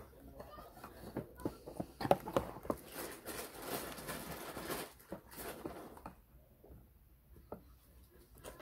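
Handling noise: a small wooden crate is set down and shifted on a tabletop, with a few sharp knocks about two seconds in followed by a couple of seconds of rustling, then a few faint taps.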